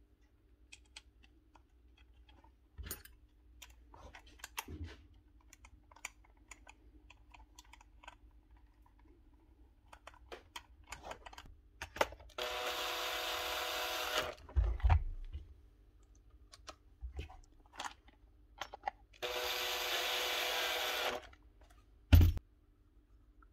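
Small parts clicking and tapping as they are handled, then two steady hissing sprays of about two seconds each, and a sharp knock near the end.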